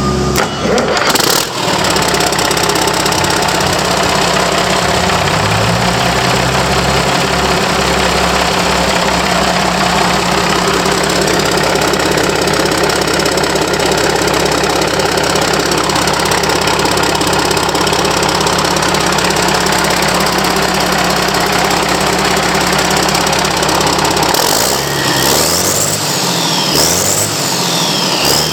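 Caterpillar 3406C inline-six diesel engine running on its own, out of the excavator, with a steady, loud engine note. The speed rises a few seconds in, then is revved up and down twice near the end.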